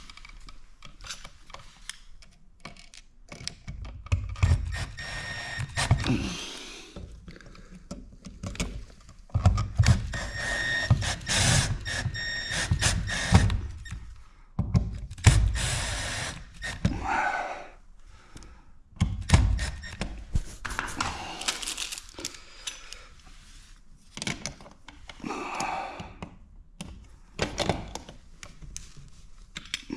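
Irregular clicks, knocks and thunks of hands working a GFCI outlet into its metal wall box and fastening it in place, with handling noise between the knocks.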